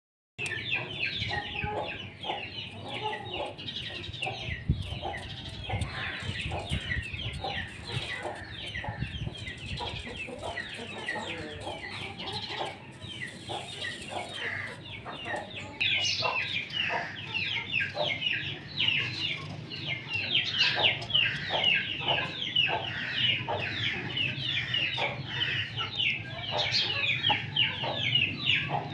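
Chickens clucking with a steady stream of high chirping calls throughout, and scattered light clicks and scrapes of a knife peeling potatoes on a wooden board.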